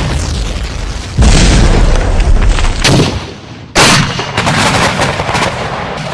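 Cartoon stock sound effects: a run of loud explosion-like booms and blasts, each starting suddenly and tailing off into rumble, with a few sharp cracks after the last one.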